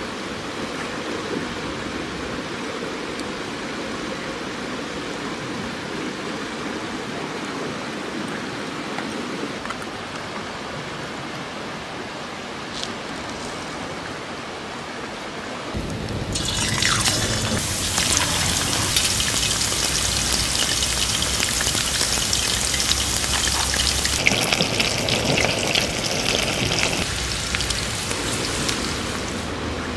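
Starch-coated pork pieces deep-frying in hot oil: a loud, steady sizzle that sets in about halfway through. It is preceded by quieter sounds of the meat being prepared.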